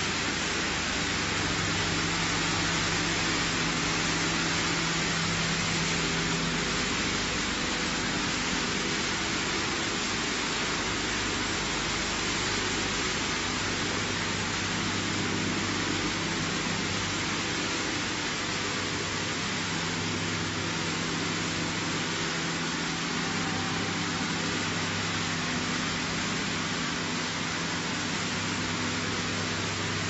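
PET bottle washing line running: a steady, even hiss of machinery and water with a low hum from its electric motors underneath.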